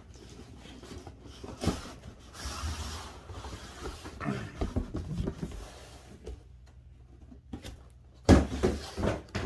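Handling noise from unpacking a boxed power tool: rustling and scattered light knocks and clicks, with a louder thump about eight seconds in.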